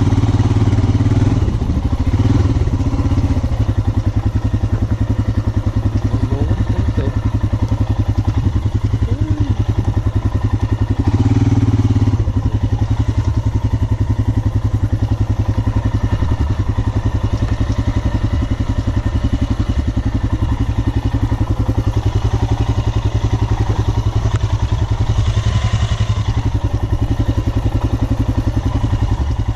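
Royal Enfield Himalayan 411's single-cylinder engine running under way off-road, with louder bursts of throttle near the start and again about eleven seconds in.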